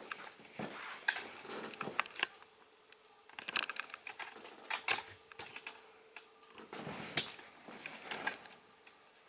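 Irregular clicks, taps and rattles of a 12-inch Galaxy model 2150 plastic table fan being handled, with a faint steady hum from about three to seven seconds in.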